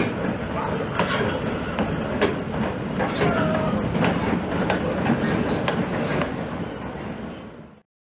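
Narrow-gauge steam train passing over a level crossing: a steady rumble with sharp clicks of the wheels over the rail joints, about one or two a second. The sound fades and then cuts off abruptly just before the end.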